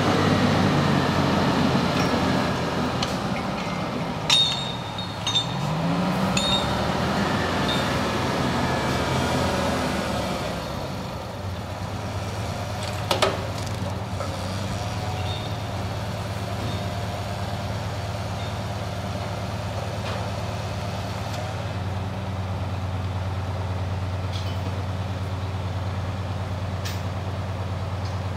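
Heavy diesel engine of a Madill 123 tracked grapple yarder running as the machine travels, its pitch rising and falling over the first ten seconds, then settling to a steadier, quieter run. A few short, sharp squeaks or clanks break through around five seconds in and again near thirteen seconds.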